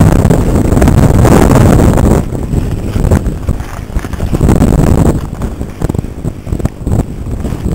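Wind buffeting the microphone of a camera mounted on a mountain bike's front fork, with rattles and knocks from the bike jolting over snow. Loudest for the first two seconds and again around four seconds, easing after about five seconds.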